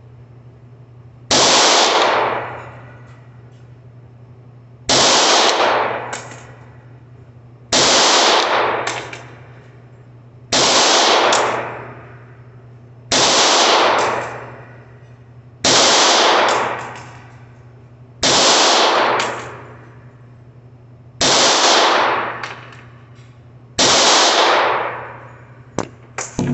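Beretta APX 9mm pistol fired nine times with Hornady Critical Defense defensive rounds, slow single shots about two and a half to three seconds apart, each a sharp crack with about a second of echo. A steady low hum underneath, and a few small clicks near the end.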